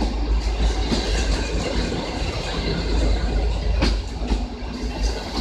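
Passenger coaches rolling slowly as the train pulls in to stop, with a low rumble and wheels clicking over rail joints; the loudest click comes about four seconds in.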